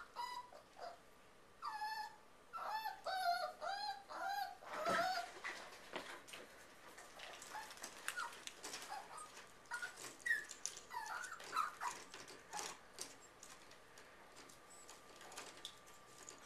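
Miniature pinscher mix puppy whining: a quick run of high, wavering cries in the first few seconds, then a few fainter whimpers near the middle, with scattered light clicks and knocks.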